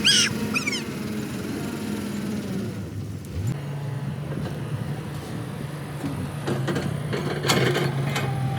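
Vehicle engine sound effects. A steady engine hum stops after a couple of seconds. About a second later an engine starts with a quick rising pitch and settles into a steady run, with a few sharp knocks near the end. A brief high squeak opens it.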